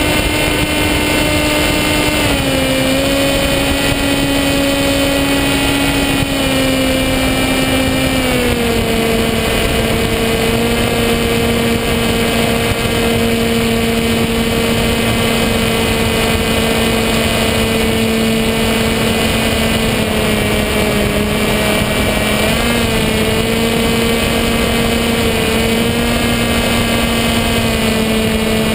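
Electric motor and propeller of a SkyWalker FPV model plane in flight: a steady whine under heavy wind rush on the onboard camera. The whine steps down in pitch about two seconds in and again around eight seconds, then wavers briefly a couple of times later.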